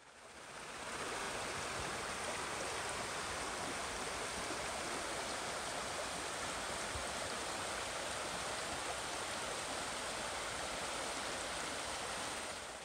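Shallow stream running over stones: a steady rush of water that fades in over the first second.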